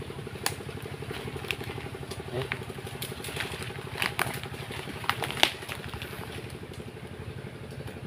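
A small engine running steadily in the background, with scattered clicks and a sharp snap about five and a half seconds in.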